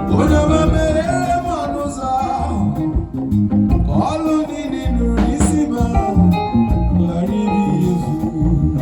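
Band music led by guitar over a deep bass line, with a blues feel and gliding melody notes.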